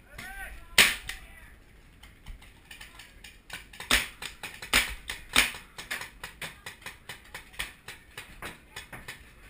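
Paintball fire: a sharp crack about a second in, then from about three and a half seconds a run of sharp pops, a few loud ones first and then smaller ones about three a second.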